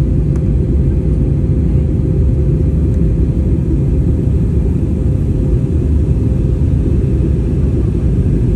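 Steady, loud low rumble of a moving vehicle heard from inside, with a constant mid-pitched hum over it.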